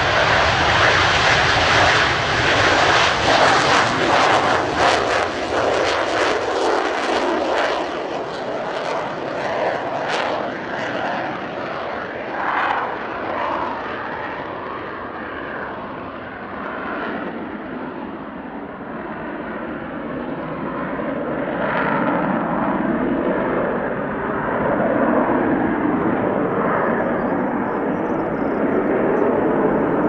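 Twin J79 turbojets of an F-4EJ Kai Phantom II at takeoff: a loud jet roar with crackling in the first several seconds. The roar turns duller and fades as the jet climbs away, then swells again somewhat near the end as it banks.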